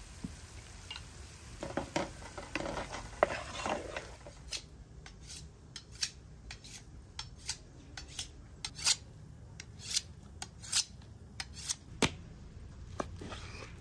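A kitchen knife being sharpened by hand: quick metal-on-metal scraping strokes, about two or three a second. Softer scraping comes first, and a single thud near the end.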